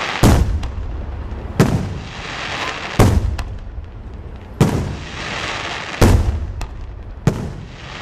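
Fireworks display: about six loud aerial shell bursts, one roughly every second and a half, each bang followed by a rumbling echo.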